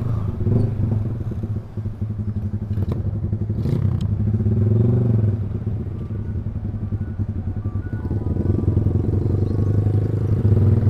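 Yamaha R15 V3's single-cylinder engine running through a loud aftermarket Proliner exhaust while riding, with a steady engine note that eases briefly about two seconds in before picking up again.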